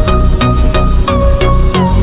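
Electronic background music with a steady beat and synth notes that slide in pitch.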